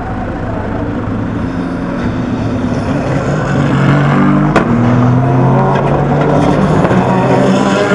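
SUPER GT race cars braking into the chicane, their engines coming down through the gears and growing louder as they approach. A single sharp crack cuts through about halfway.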